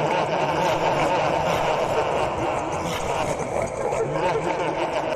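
A prank program plays sound effects of voices and snickering laughter, many copies overlapping into a loud, unbroken jumble.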